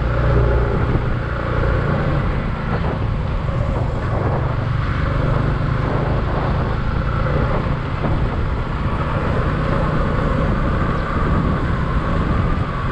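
Motorcycle riding steadily at road speed, heard from the rider's seat: a constant low engine hum with a rush of wind and road noise.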